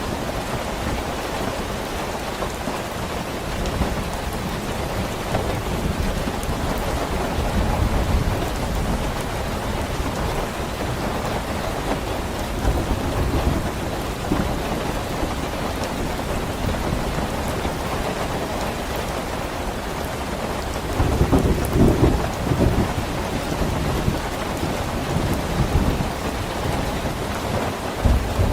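Steady heavy rain with low rolling thunder, the loudest rumble about three-quarters of the way through.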